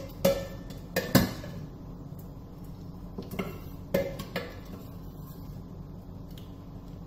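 Metal kitchenware clinking and knocking: several sharp ringing clinks, a cluster in the first second and a half and another about three to four and a half seconds in, over a faint steady background.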